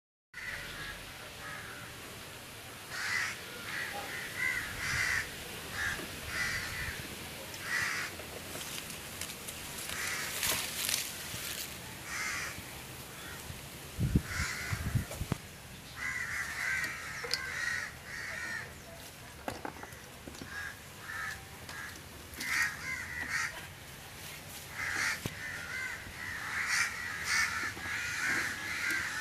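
Birds calling outdoors: short calls repeated again and again, with longer chattering runs. A couple of low thumps come about halfway through.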